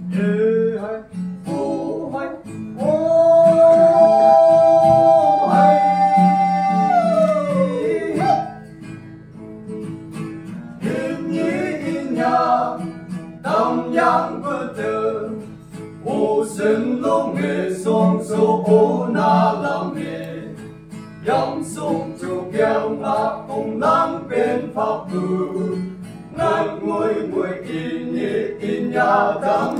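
Live folk fusion song: a group of men singing in harmony to guitar accompaniment, with a long held note from about three seconds in that slides down near eight seconds.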